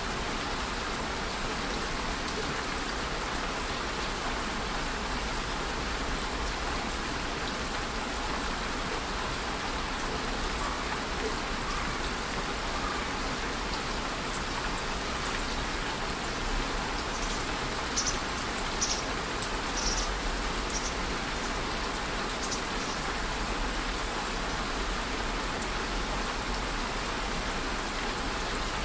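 Steady rain falling, an even hiss of drops, with a few louder, sharper drips clustered about two-thirds of the way through.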